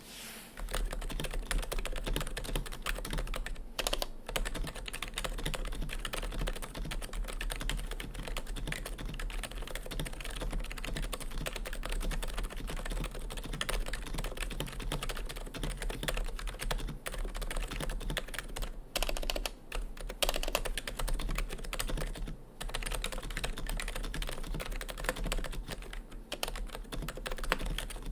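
Continuous fast typing on a custom keyboard: a PC SRX case with YMDK sliders and housings over des-dome V2 rubber domes, a stainless steel plate and GMK keycaps, giving dense keystroke clacks with a few brief pauses.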